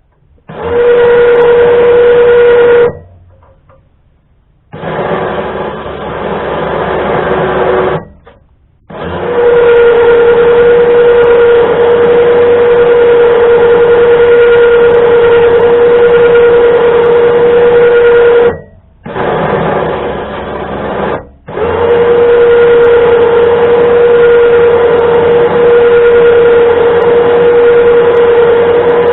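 Electric 2500 lb winch motor running in bursts as it re-spools its steel cable, a steady motor whine. Five runs: three long, loud ones at one pitch alternate with two shorter, quieter runs at a lower pitch, with brief stops between.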